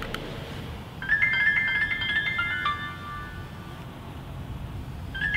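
Mobile phone ringtone: a short, bright melody of quick high notes plays for about two seconds, then starts again near the end, over a steady low background rumble.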